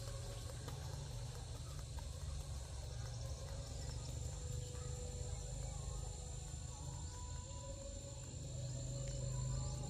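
Insects trilling steadily in the background, a thin high continuous tone, over a steady low rumble.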